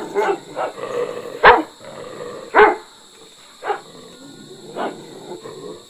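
Dog barking: single barks about a second apart, the loudest about one and a half seconds in, the later ones weaker.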